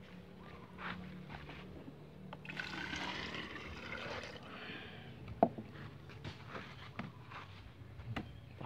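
Coconut water poured from a plastic jug into a plastic bottle, trickling and filling for a couple of seconds starting about two and a half seconds in. A sharp knock follows about halfway through, then a few lighter taps.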